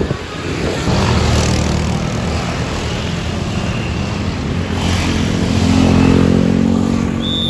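Large tour bus's diesel engine running, getting louder to a peak about six seconds in, with a short high beep near the end.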